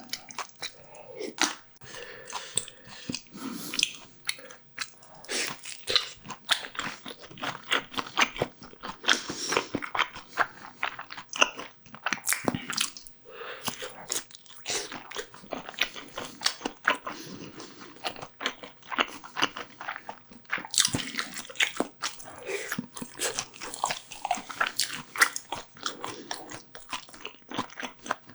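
Close-miked eating: a person biting and chewing food, with a dense, irregular run of quick wet clicks and smacks.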